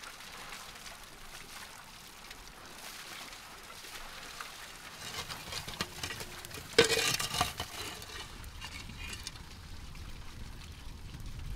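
Charcoal and wood fire crackling and hissing under a rotisserie drum of fish. The crackles grow denser halfway through, with one loud sharp snap about seven seconds in.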